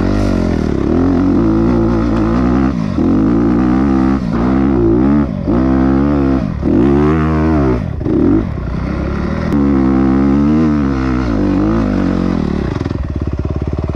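Dirt bike engine being ridden hard, its pitch rising and falling over and over as the throttle is opened and backed off, then holding steadier near the end.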